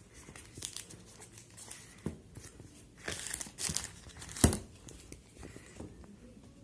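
Thin plastic packaging crinkling and tearing as it is handled, with a denser run of rustling about three seconds in and one sharp click a little past the middle.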